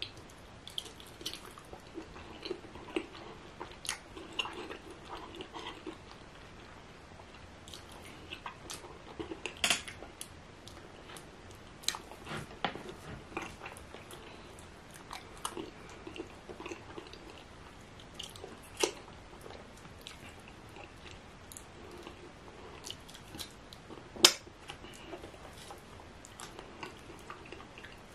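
Close-miked chewing and wet mouth sounds of a person eating fufu with ogbono soup by hand, with scattered sharp lip smacks and clicks, a few much louder than the rest.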